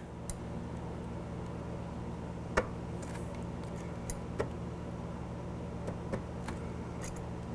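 Steady low mechanical hum in a small workshop, with a few faint clicks and one sharper tick about two and a half seconds in as a digital caliper is handled against a motorcycle fork top.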